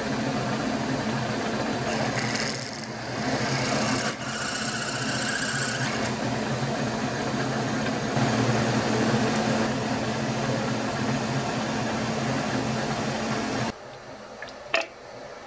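Milling machine spindle running as a twist drill bores a 6 mm hole through a small metal block: a steady hum with a hiss of cutting noise. The sound drops sharply near the end, followed by a single click.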